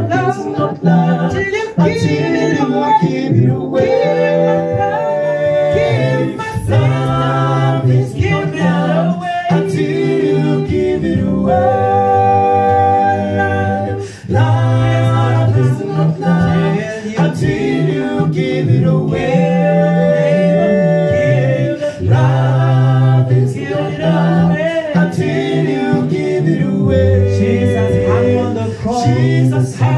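Male vocal group singing a cappella in close harmony through microphones, voices only, with no instruments. A long held chord comes about twelve seconds in.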